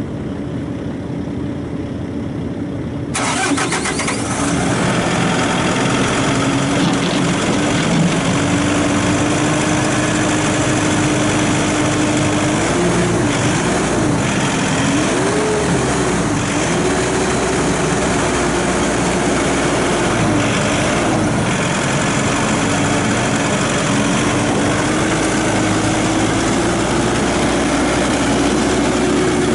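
Mahindra mForce 105S diesel tractor engine running. The sound grows fuller and louder about three seconds in. In the middle its speed rises and falls several times while the front loader is raised, then it holds a steadier, higher note as the tractor drives.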